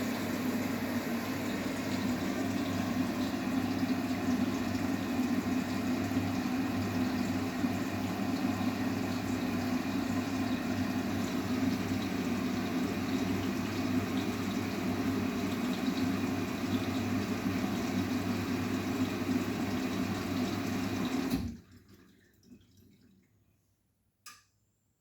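Arçelik 9120M washing machine running with water rushing in, as when it fills, over a steady hum. The sound cuts off suddenly near the end, leaving near quiet with one faint click.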